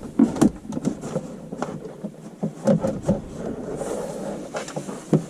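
Dash cam power cable being pulled and tucked along plastic interior trim: scattered scraping and rubbing with light clicks.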